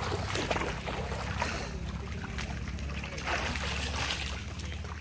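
Shallow floodwater sloshing and trickling around a man's legs as he wades with a wet cast net, over a steady low rumble.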